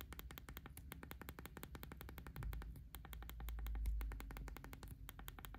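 Rapid, even clicking, about ten clicks a second, of an iPhone 15 Pro's volume buttons pressed through the built-in button covers of a Casetify Impact case. The clicking is faint, and a low rumble of the phone being handled swells and fades in the middle.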